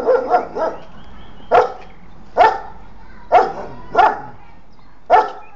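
Dog barking: a quick run of short barks at the start, then single barks about once a second.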